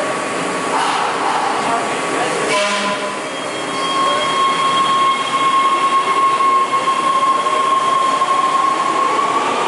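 Breda A650 subway train pulling out of the station. A short hiss comes about two and a half seconds in; from about four seconds its traction motors give a steady high whine, which starts to climb in pitch near the end as the train gathers speed.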